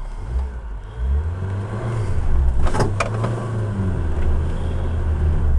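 Suzuki jeep engine running under load over rough ground, picking up revs about a second in and then holding steady. Two sharp knocks come a little before halfway as the vehicle jolts.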